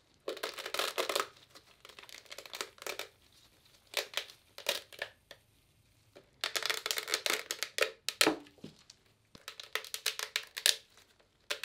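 Support structures being snapped and peeled off a resin 3D print by gloved hands, the thin resin supports softened in warm water: repeated bursts of crackling, with a short pause about halfway.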